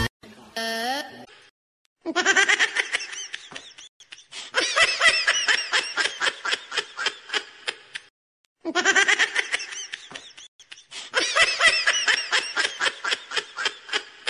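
High-pitched laughter in four bouts, each a run of quick pulsed giggles, separated by short silences.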